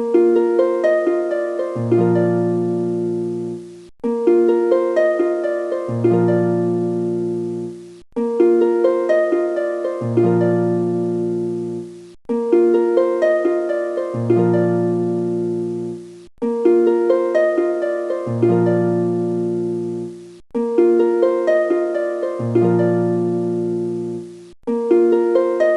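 Background music: a short plucked-string melody loop that repeats about every four seconds, with a deep bass part coming in halfway through each repeat.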